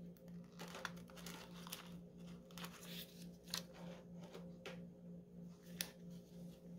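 Faint crinkling and scattered small clicks of a plastic sheet of self-adhesive rhinestone gems being handled as gems are peeled off it by hand, over a steady low hum.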